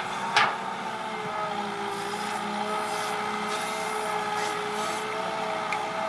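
Hitachi EX120 hydraulic excavator's diesel engine running steadily under load, its tone shifting slightly in pitch as the bucket works into the soil. A single sharp clank comes about half a second in.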